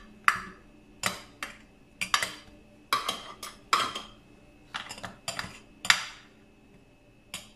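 Metal fork clinking and tapping against a glass baking dish and a plate in about a dozen irregular sharp strikes, each with a short ring, as biscuits are dipped in milk and laid in the dish.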